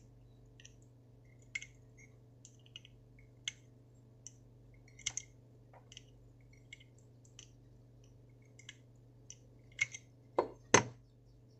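Scattered small metallic clicks and taps from a Zippo-style lighter being handled, its parts still stiff, with a few louder clicks near the end.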